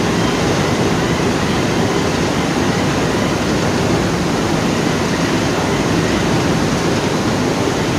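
Steady, loud, even rushing noise with no beat or tone, consistent with heavy machinery running.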